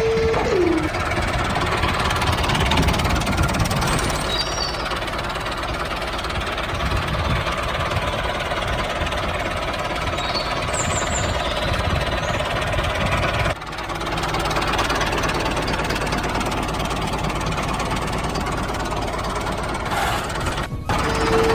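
Mini tractor's small engine running steadily with a knocking chug. It breaks off briefly about two-thirds of the way through, then runs on.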